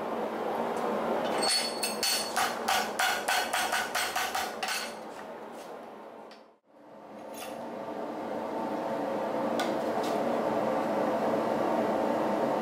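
A quick run of ringing metal-on-metal hammer taps, about three or four a second for some three seconds, on hot leaf-spring steel held in a steel bench vise, over a steady shop roar. The roar drops out briefly near the middle and then carries on with only a few faint clicks.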